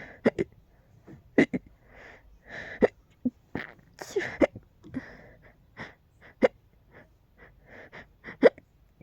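A person's hiccups and small hiccup-like sneezes, about a dozen short, sharp bursts at uneven spacing, with breathy exhalations in between. The loudest bursts come about a second and a half in and near the end.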